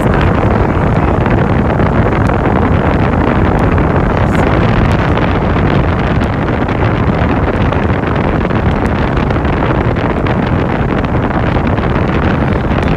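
Loud, steady rush of wind and road noise inside a moving car, with wind buffeting the microphone.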